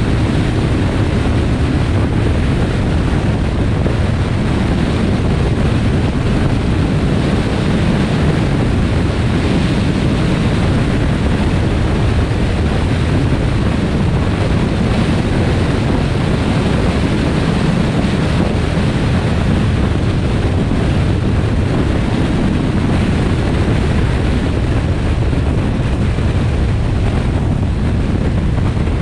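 Steady wind rumble on the microphone mixed with the road noise of a car driving at speed on a highway; an even, unbroken noise, heaviest in the low end.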